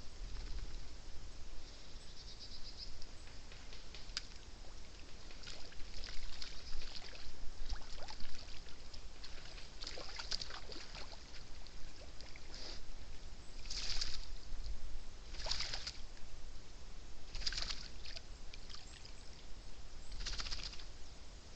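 Wild boar splashing and sloshing in water while bathing: a series of short splashes, clearer and about every two seconds in the second half.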